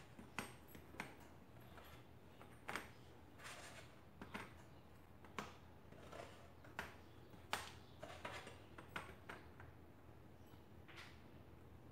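Baked biscuits being set down one by one on a metal wire cooling rack: a dozen or so light, irregular clicks and taps.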